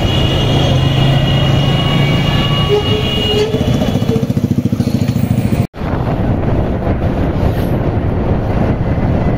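Riding a motorcycle in traffic: engine running with road and wind noise. For a couple of seconds about halfway through, another motorcycle's engine pulses close alongside. The sound cuts out for an instant a little after halfway, then wind and road noise carry on.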